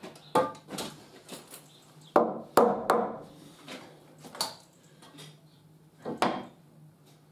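Several sharp knocks and clunks of wood and hand tools, from a spirit level and tools handled against a timber stair newel post and a tool belt. The loudest pair comes a little over two seconds in, and another follows just after six seconds.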